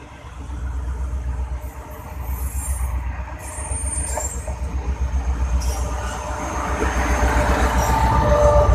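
HGMU-30 diesel-electric locomotive running into the station and passing close by, its low engine rumble growing steadily louder. About three-quarters of the way in, a high squeal joins it as the braking train slows to stop.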